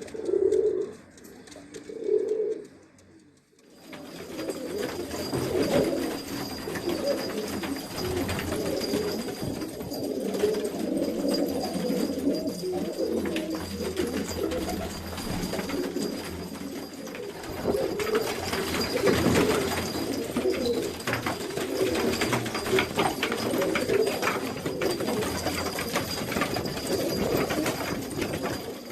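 Domestic pigeons cooing. In the first three seconds there are a few separate coos, then a dense chorus of many overlapping coos from about four seconds in, with a faint steady high tone behind it.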